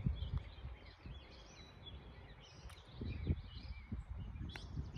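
Quiet outdoor ambience: small birds chirping faintly over a low rumble, with one brief click about four and a half seconds in.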